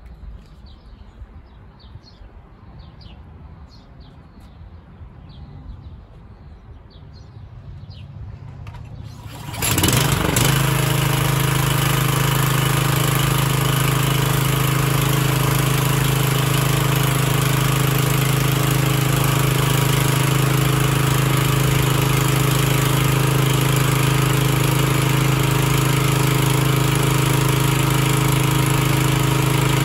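A brand-new Troy-Bilt 28-inch self-propelled lawn mower's gas engine starting on the first pull about ten seconds in, then running steadily at a constant speed.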